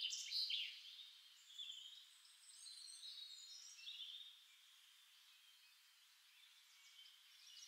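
Faint songbird chirps and short trills. They are livelier in the first second, then thin out to a few scattered calls and fade away after about four seconds.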